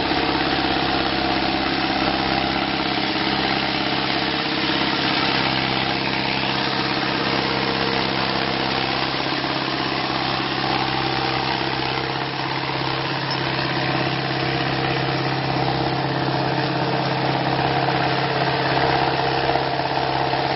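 Farm tractor's diesel engine running steadily while pulling a tillage implement through the field, with no change in speed.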